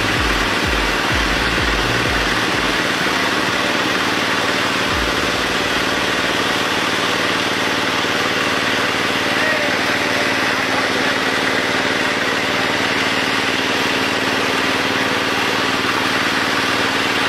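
A motor running steadily, with a constant hiss of splashing water from a tank crowded with small fish. There are a few low thumps in the first three seconds.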